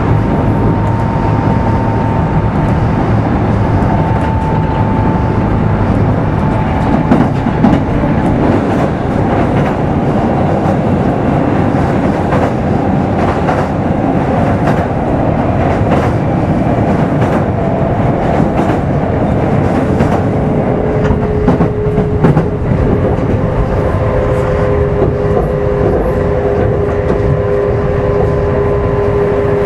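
Running sound inside a Kintetsu 5200 series electric motor car: traction motor and gear whine over a steady rumble, the whine drifting slowly lower in pitch, with wheels clicking over rail joints mostly in the middle stretch. About two-thirds of the way through, a lower pair of steady tones takes over.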